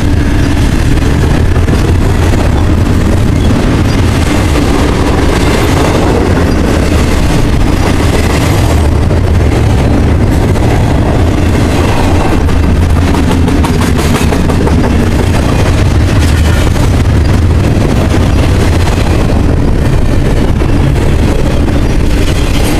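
Double-stack container train rolling past close by: a loud, steady rumble of steel wheels on the rails under the loaded well cars.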